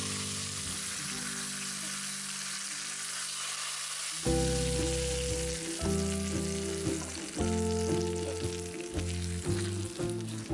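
Hot cooking oil poured onto raw pounded chilies, shallots, ginger and tomato, sizzling steadily as it cooks the sambal. Background music comes in about four seconds in.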